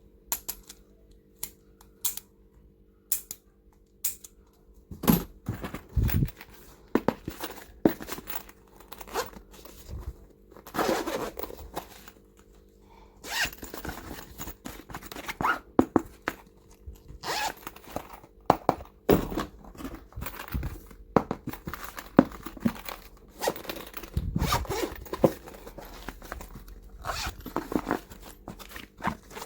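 Stationery and small toys being handled: an irregular run of sharp clicks and taps with short spells of scraping and rustling, over a faint steady hum.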